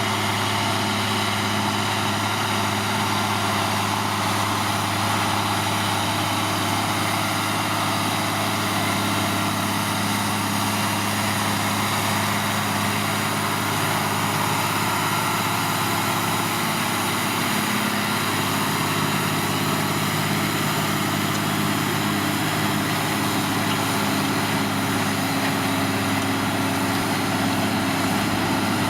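New Holland tractor's diesel engine running steadily while pulling a Kverneland plough, with an even, unbroken drone.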